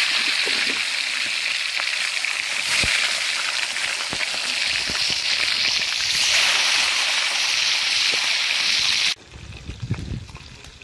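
Fish head sizzling as it fries in hot oil in a wok, a loud steady hiss that cuts off suddenly about nine seconds in.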